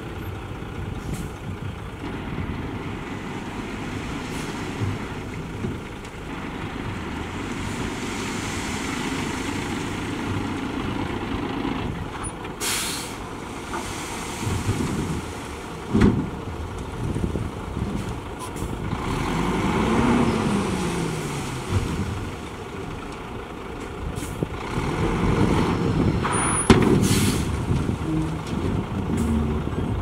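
Heavy diesel dump truck engines running, with one revving up and back down about two-thirds of the way in. Air brakes hiss sharply twice, and there is a single knock in the middle.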